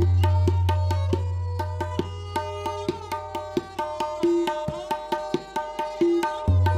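Tabla played solo: a deep bass stroke on the bayan is held and rings for several seconds while quick, sharp strokes on the dayan play over it. The bass dies away about four seconds in, and a new bass stroke comes in near the end.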